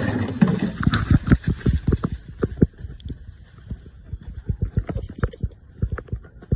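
Rapid, irregular thumping footsteps and rustling through dry leaf litter, about four steps a second, with handling knocks on a handheld phone. A loud burst of leaf rustling over the first couple of seconds.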